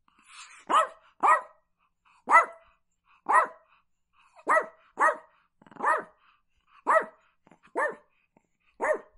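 Chihuahua barking: about ten short, high-pitched barks, roughly one a second, some coming in quick pairs.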